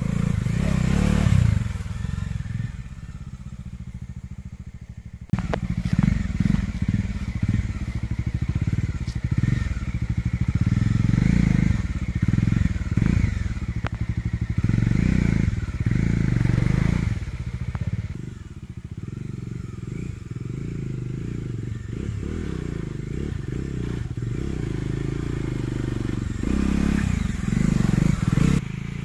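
Bajaj Dominar 400 motorcycle's single-cylinder engine revving in low gear on a slippery, muddy track, the throttle opening and closing repeatedly in uneven bursts. The sound jumps louder about five seconds in.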